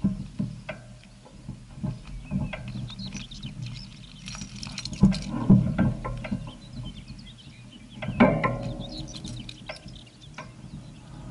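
Irregular rattling, clicking and knocking of a bike and its action-camera mount while riding, over a steady low hum, with the hardest jolts about five seconds in and again about eight seconds in.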